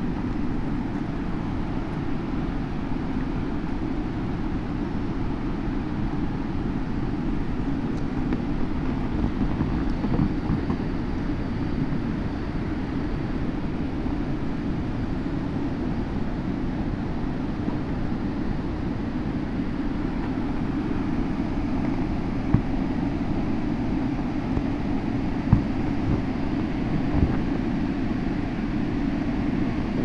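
Steady low rushing roar of a river and waterfall, unbroken throughout, with three brief knocks in the second half.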